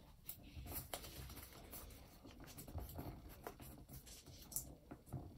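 Faint rustling and creasing of a small square of paper being folded by hand, with soft, scattered crackles.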